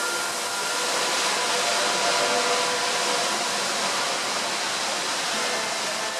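Storm wind rushing steadily through leafy trees. Faint held notes of ambient background music sound underneath.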